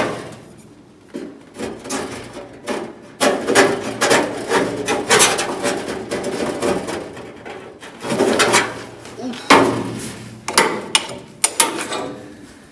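A metal scraper rasping against the steel inner panel of a truck door in irregular strokes with short pauses, with a few sharp knocks of metal on metal near the end.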